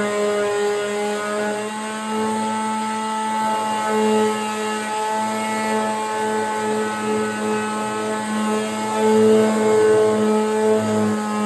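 Electric power sander running steadily, sanding down hardened Bondo body filler on a door; its hum swells slightly about nine seconds in.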